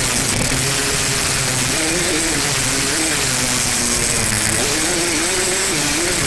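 Yamaha YZ single-cylinder two-stroke dirt bike engine under way, its pitch rising and falling every couple of seconds as the throttle is opened and closed.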